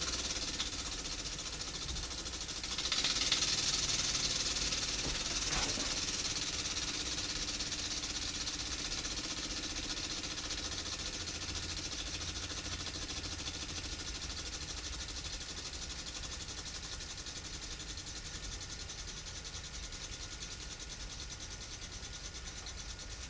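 Small single-cylinder model steam engine running on compressed air: a fast run of exhaust puffs over a hiss of escaping air. It picks up about three seconds in, then slowly eases off.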